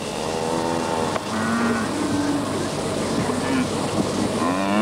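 Odd animal calls: a string of separate pitched calls that waver and bend, the loudest one sweeping upward near the end, over a steady background rumble.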